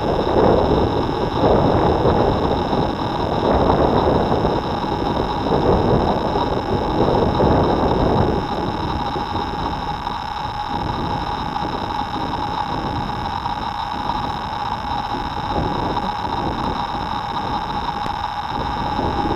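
Drone motors and propellers whining steadily, a few high tones held over a noisy rush, with gusty wind buffeting the microphone for the first eight seconds or so before it settles.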